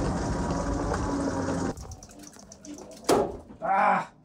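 3D-printed battery-electric go-kart running across an indoor floor: a steady motor-and-wheel noise that stops abruptly about two seconds in. Two short bursts of voices follow near the end.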